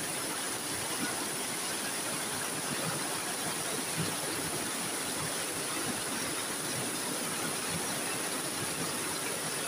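Heavy tropical downpour: a steady hiss of rain falling hard, with water pouring off a roof edge.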